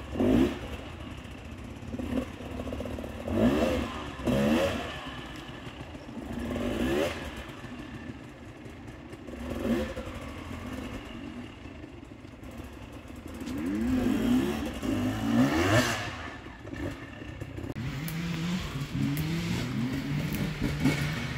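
Enduro dirt bike engine revving in repeated short bursts, its pitch rising and falling as the rider works up a rocky climb. Near the end a closer bike's engine runs at a steadier pitch.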